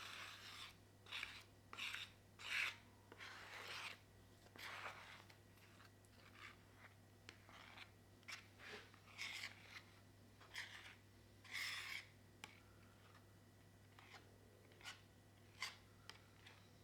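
Wood glue being spread over a plywood piece: short, irregular scraping and rubbing strokes, some closely spaced and some with pauses between them.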